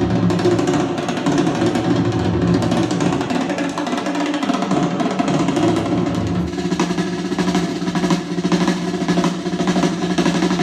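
Recorded music with drums and a sustained bass line playing through a pair of Elac Debut B6.2 bookshelf speakers, picked up by a phone's microphone.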